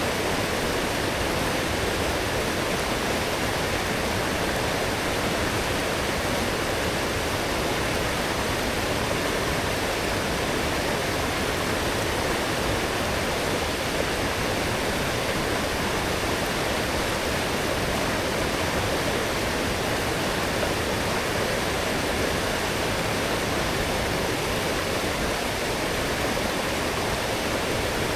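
A strong forest stream rushing steadily, swollen after heavy rain: a constant, even wash of flowing water with no breaks.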